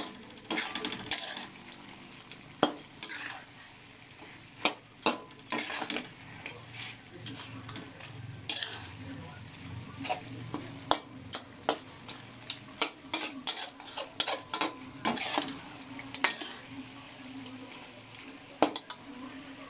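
Chicken adobo frying in a thick sauce in an aluminium wok, sizzling steadily while a spatula stirs it, with irregular sharp clicks and scrapes of the utensil against the pan.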